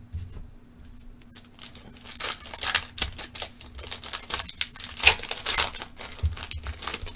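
Foil trading-card pack being torn open by hand and its wrapper crinkled, a quick run of sharp crackles and rustles from about two seconds in, loudest a little past the middle.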